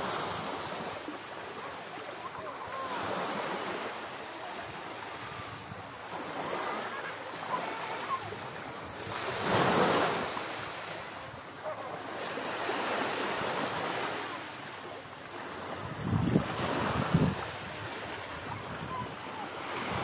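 Small sea waves breaking and washing up a sandy beach, the surf rising and falling in slow surges, loudest about halfway through. A few low thumps come near the end.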